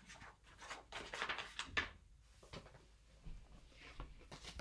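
Faint rustling and light knocks of a book being handled, its pages turned.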